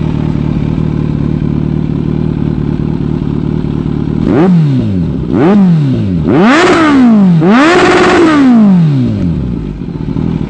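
A 2018 Kawasaki Z900's inline-four engine, fitted with an aftermarket short exhaust, idles steadily. About four seconds in it is revved four times, the first two as quick blips and the last two held briefly at higher revs, then it settles back to idle.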